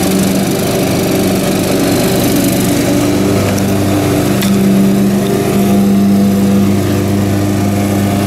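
A small engine running steadily nearby, its drone rising and falling slightly in strength.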